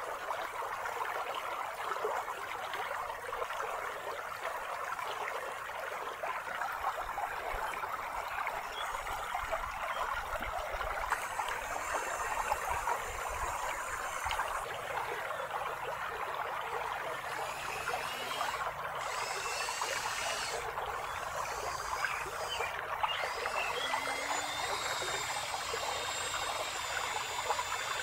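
Creek water flowing and trickling over stones, a steady rushing babble. Faint thin high-pitched tones come and go in the second half.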